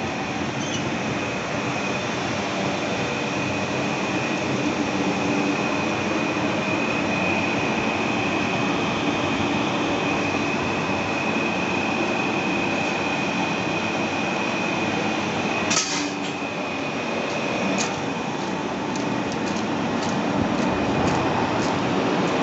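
Steady mechanical whir from a power transformer's cooling equipment, with a thin high whine running through it. There is a sharp click about two-thirds of the way in and a few lighter ticks after it.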